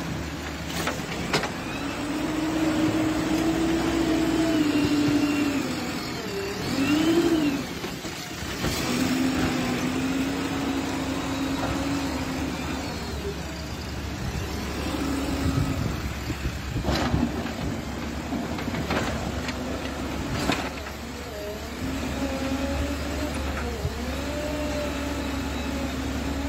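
JCB backhoe loader's diesel engine running under load, revving up and down in long swells as it pushes mud and rock with its front bucket, with a few sharp knocks.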